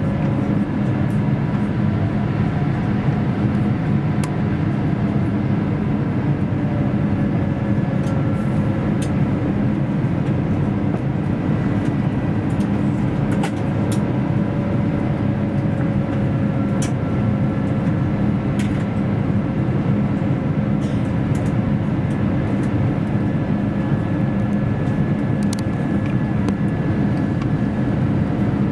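Steady cabin noise inside an Airbus A350 descending on approach. The Rolls-Royce Trent XWB engine hums and air rushes past the fuselage. A few faint steady whines sit above the hum, one slowly wavering in pitch, and there are occasional faint clicks.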